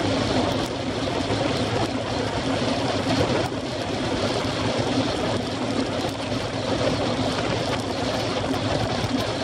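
Steady wind rushing over a bike-mounted camera's microphone at about 45 km/h, mixed with the hum of road-bike tyres on asphalt.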